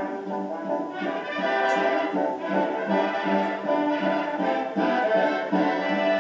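Orchestral film score led by brass, playing held chords that change every half second or so.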